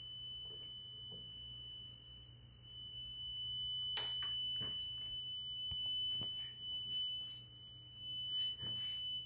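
Steady 3 kHz sine test tone from a wow-and-flutter meter's oscillator, the reference signal for measuring a cassette deck's wow and flutter, with a low mains hum beneath it. A few short clicks from a cable plug being handled at the meter's connector.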